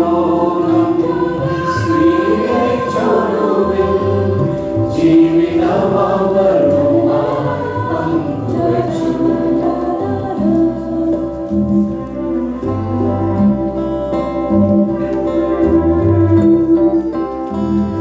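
Mixed choir of women and men singing a Malayalam Christmas carol, with long held chords in the second half.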